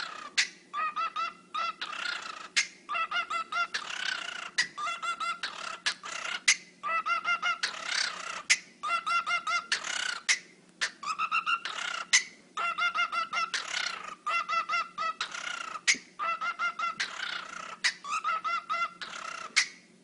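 Cockatiel making dubstep-style noises: runs of rapid, stuttering pitched pulses like a wobble bass, broken by breathy hissing bursts and sharp clicks.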